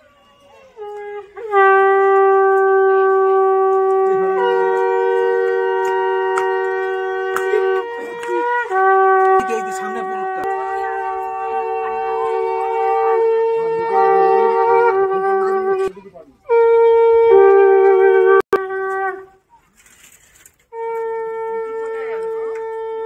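Conch shells (shankha) blown in long, held blasts, about four of them with short breaths between. For long stretches two conches sound together at slightly different pitches.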